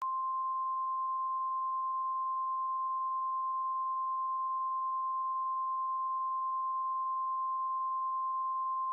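NOAA Weather Radio 1050 Hz warning alarm tone: one steady, pure high beep held for about nine seconds, starting and stopping abruptly. It is the alert signal that a tornado warning broadcast is about to follow.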